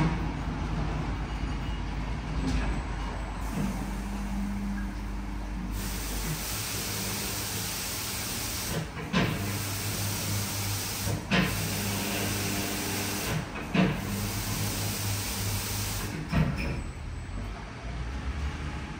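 WashTec SoftCare2 Pro rollover car wash at work: spray nozzles hiss as liquid is sprayed onto the car over a steady pump hum. The spraying runs from about a third of the way in to near the end, with a short sharp clack about every two and a half seconds.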